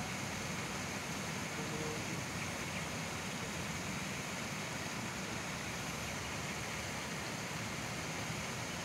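Steady outdoor background noise: an even rush with no distinct events.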